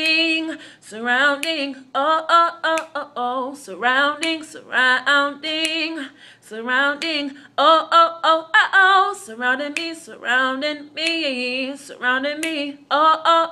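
A woman singing unaccompanied in short phrases, with wavering, ornamented runs and brief breaths between them.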